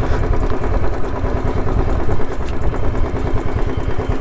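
Royal Enfield Thunderbird's single-cylinder engine running while the motorcycle is ridden off-road, with a steady low pulsing beat.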